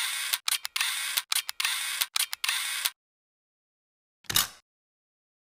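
Logo-intro sound effects: a run of sharp mechanical click-and-hiss sounds, about one every two-thirds of a second, stopping about three seconds in. About a second later there is a single short swoosh with a low thud.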